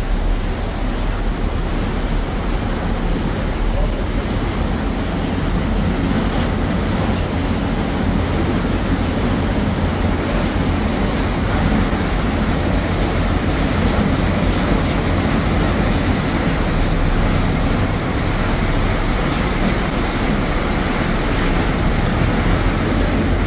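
A passenger ferry's churning stern wake and engines under way: a steady rush of water over a low rumble, with wind buffeting the microphone.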